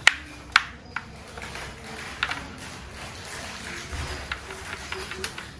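Hand-handling noises from a motorcycle helmet's lining as an intercom cable is tucked in: a few scattered sharp clicks, the loudest near the start, with light rustling between them.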